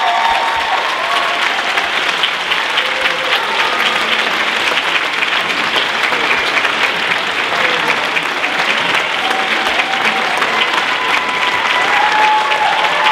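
Audience applauding steadily, dense clapping throughout. In the first second the choir's last held chord fades out under the clapping, and a few pitched voices rise over it near the end.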